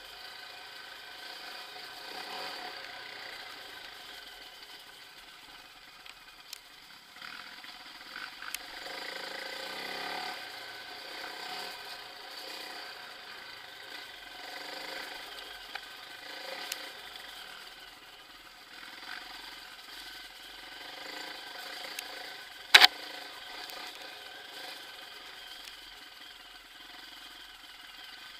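Mountain bike riding a dirt forest trail: a steady whirring buzz from the rear freewheel hub while coasting, with rattles and small knocks as the bike runs over the ground, and one sharp, loud clack about 23 seconds in.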